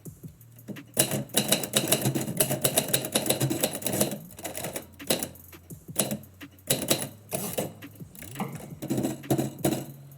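Typewriter keys being struck in fast runs of sharp clacks, starting about a second in, then in shorter bursts with brief pauses between them.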